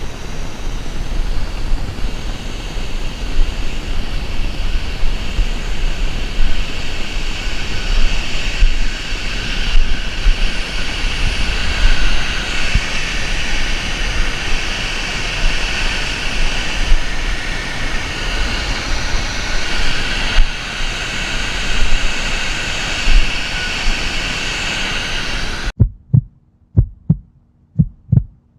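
Steady rush of a waterfall mixed with wind rumbling on the microphone. Near the end it stops abruptly and gives way to a run of low, evenly spaced thumps, about two a second.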